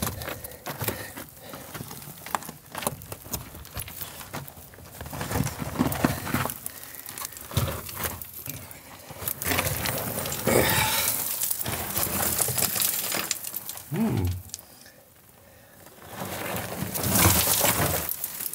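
Footsteps crunching and sliding on loose rock and gravel, with small stones clicking and knocking together, as someone scrambles over rubble into a mine tunnel. Rough scraping and shuffling comes in two longer stretches, the second near the end.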